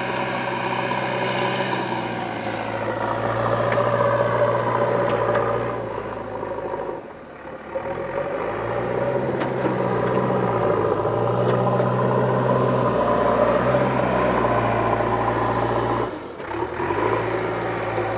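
JCB 3DX backhoe loader's diesel engine running under varying load, its pitch stepping up and down slightly as it works. The sound drops away briefly twice, about seven seconds in and near the end.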